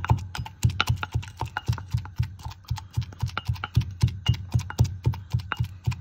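Pestle pounding garlic and salt into a paste in a ceramic mortar: a steady run of dull knocks, about three a second.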